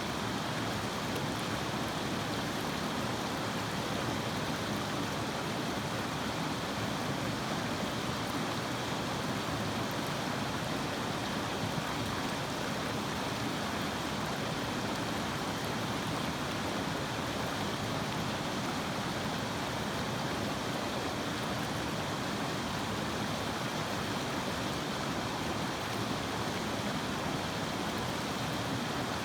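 Flowing river water: a steady, even rush that holds unchanged throughout.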